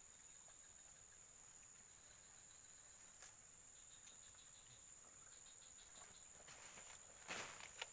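Insects chirring in a steady high-pitched drone, with fainter pulsing chirps in the middle. A short rustle and a knock come near the end.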